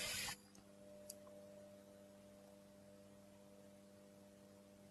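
Near silence with a faint steady electrical hum, after a short hiss that stops just after the start and a faint tick about a second in.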